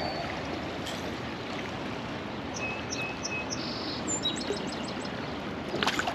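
Steady rush of river current, with a bird calling: three short thin notes, then a quick run of about six higher notes about four seconds in. A hooked fish splashes lightly at the surface near the end.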